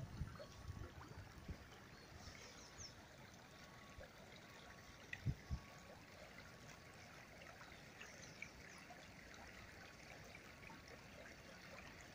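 Faint, steady trickle of a shallow river running over stones, with a couple of soft low bumps about five seconds in.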